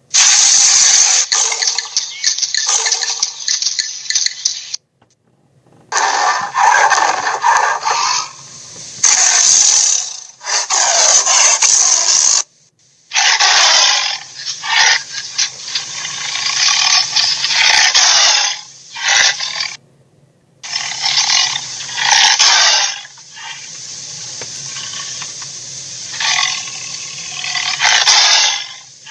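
A string of dinosaur roar sound effects: harsh, noisy roars of a few seconds each, broken four times by brief dead silences between clips.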